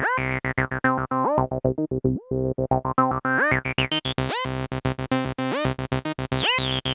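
MAM MB33 Retro analog bass synthesizer, a TB-303 clone, playing a fast repeating acid bassline with its filter resonance turned up. The resonant peak sweeps up high about four seconds in and falls back toward the end.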